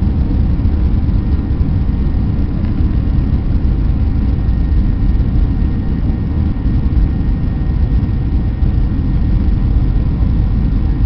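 Airliner cabin noise during the takeoff roll: the engines at takeoff power and the roll down the runway make a steady, loud low rumble, with a faint steady whine above it.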